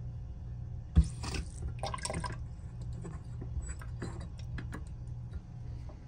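Old two-handle bathroom sink faucet worked by hand: a sharp knock about a second in, then two short rushes of water from the tap into the basin, followed by scattered drips and small clicks.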